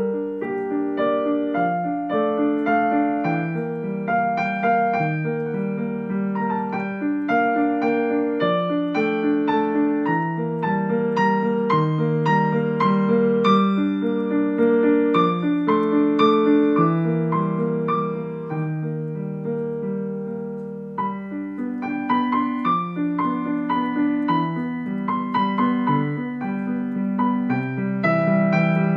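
Yamaha digital piano played with both hands: a continuous, flowing stream of notes and chords, briefly softer about twenty seconds in.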